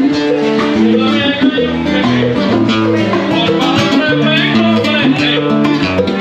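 Live Latin band playing in a salsa style: acoustic guitar and bongos, with a man singing.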